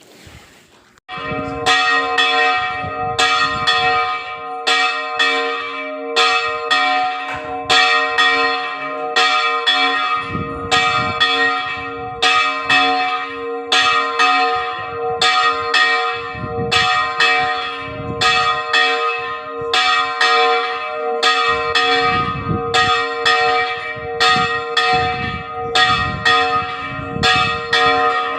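Church bells ringing, several bells of different pitch struck over and over in a continuous peal that starts about a second in.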